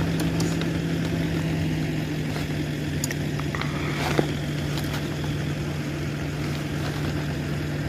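Steady low hum of an idling car engine, with a few clicks and rustles from tent poles and fabric being fitted, twice clearly, about three and four seconds in.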